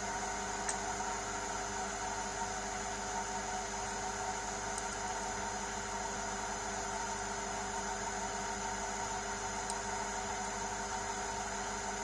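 Large Chinese-made metal lathe running steadily: a hum of several steady tones from the motor and drive, with a hiss over it that comes up right at the start and then holds.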